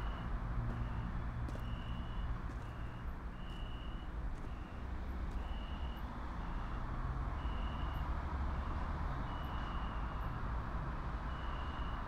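High-pitched electronic beeping, alternating longer and shorter beeps at about one pair every two seconds, over a steady low rumble.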